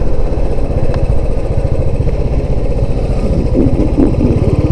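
Motorcycle engine running steadily under load, pulling up a hill road in a single gear, with an even, unchanging exhaust beat.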